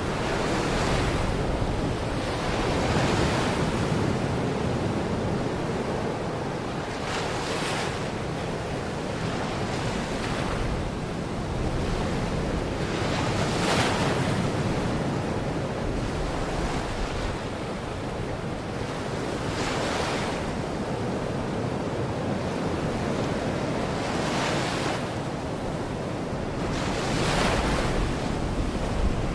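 Baltic Sea waves breaking and washing onto the shore, a surge of hiss every few seconds over a steady wash, with wind rumbling on the microphone.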